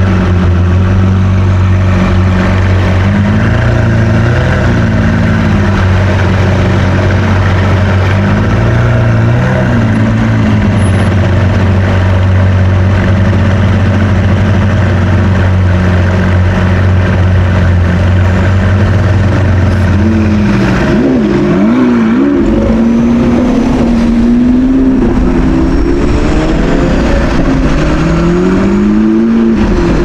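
Car engine idling steadily, with a couple of short blips of revs. About twenty seconds in it accelerates away, its pitch climbing, dropping back and climbing again as it goes through the gears.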